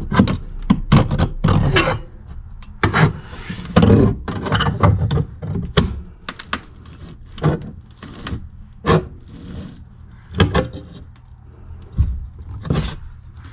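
Irregular knocks and scraping as a plumbing pipe is beaten and worked loose behind the drywall, about a dozen sharp strikes with a longer scrape a few seconds in.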